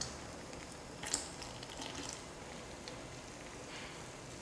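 Faint stirring of gram flour and water into batter in a glass bowl, with a few light ticks, the clearest about a second in.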